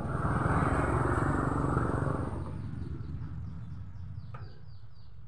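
A motor vehicle's engine passes by, loudest in the first two seconds and then fading away. As it fades, a bird chirps rapidly in short high falling notes.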